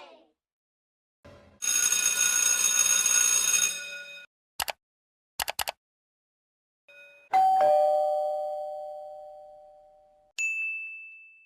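A string of separate stock sound effects with silences between them. First a noisy burst of about two seconds with bright held tones, then three quick clicks. Then a doorbell-style ding-dong: two tones, the second lower, ringing and fading away over about three seconds. Near the end comes a short high ding that fades out.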